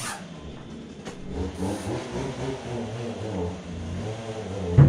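A Fendt tractor's diesel engine running and powering the hydraulics while a front-loader tool frame is tipped by its hydraulic cylinder. A short, louder low surge comes near the end.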